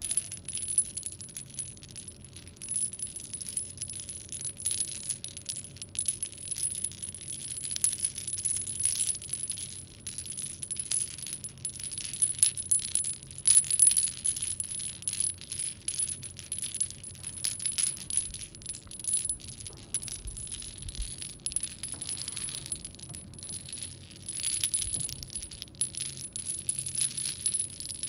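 Dense, continuous metallic jingling and clinking, swelling and ebbing and loudest about halfway through, over a thin steady high tone.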